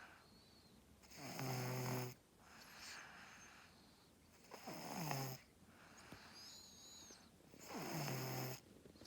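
A two-year-old girl snoring in her sleep: three loud snores about three seconds apart, each dropping onto a low buzz, with softer breathy sounds between them.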